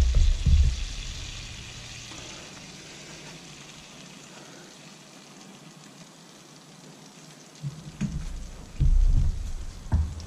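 Melted butter sizzling in a fry pan with flour just sprinkled in, a steady fizzing hiss as the butter and flour cook together. A few low bumps near the start and again near the end.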